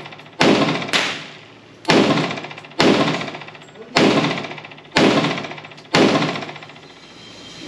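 FN FNX-45 Tactical .45 ACP pistol fired six times, about one shot a second, each crack followed by a long echo as it dies away.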